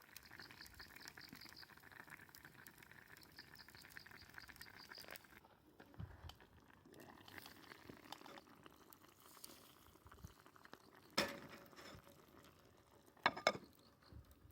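A pot of soup simmering over a campfire, a faint steady bubbling hiss, with a sharp click a few seconds before the end and a short cluster of clicks just before the end.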